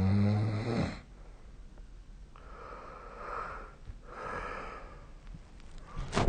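A sleeping person snoring: a loud, low rattling snore in the first second, then two softer, breathy breaths, and a short sharp noise near the end.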